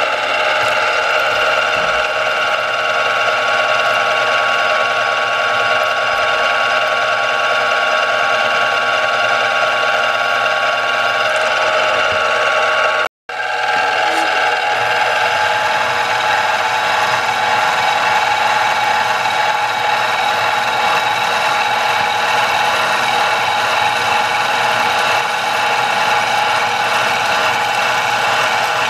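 King KC-20VS-2 variable-speed benchtop mill running steadily, its spindle motor giving a whine of several fixed tones, as a center drill and then a twist drill cut a hole through a small square metal block. The sound breaks off for an instant about 13 seconds in and resumes with a slightly different tone.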